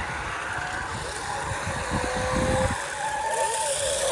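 AONGAN toy remote-control cars driving, their small electric motors whining at a steady pitch over a steady hiss; the whine jumps higher for a moment about three seconds in.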